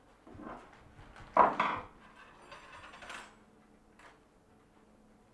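Tools and metal parts being handled in a workshop: a few scattered clinks and knocks, the loudest about a second and a half in.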